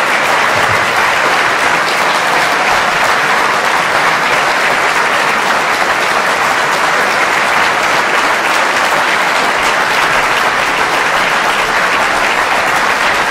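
Theatre audience applauding steadily after a string quartet performance, an even, unbroken wash of clapping.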